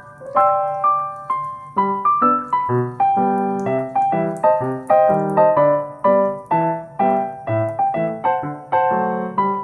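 Background piano music: a light melody of separate notes, with a bass line joining about two seconds in.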